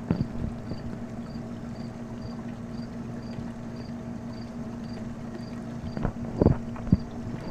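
Evening outdoor ambience: an insect chirping evenly about twice a second over a steady low hum, with a couple of sharp knocks near the end.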